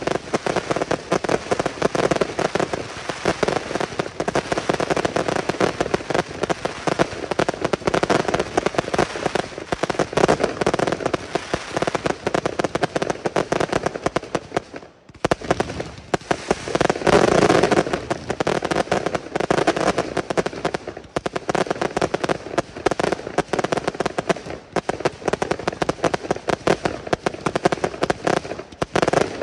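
Fireworks going off in a dense, rapid barrage of bangs and crackling. There is a brief lull about halfway.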